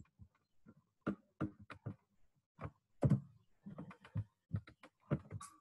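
Computer keyboard keys and mouse buttons clicking: about twenty short, irregular taps, the loudest about three seconds in.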